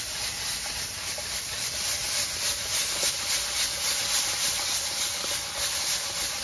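Sliced opo squash sizzling in a hot wok as it is tossed, with the freshly added vegetarian fish sauce and oyster sauce hissing in the pan. The steady hiss swells a few times a second with the tossing.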